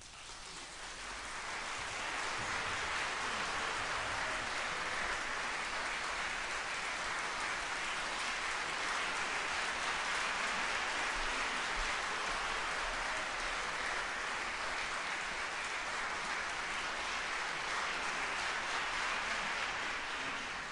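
Concert hall audience applauding after an orchestral piece. The clapping swells over the first couple of seconds, then holds steady as a dense, even crowd of claps.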